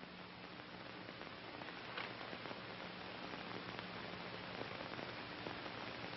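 Steady hiss with a faint low hum, slowly growing louder: the background noise of an old film soundtrack.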